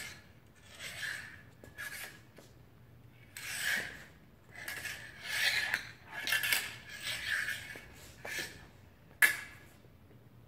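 Fencing blades scraping and clashing against each other in a series of short rasps, with one sharp metallic click about nine seconds in, the loudest of them.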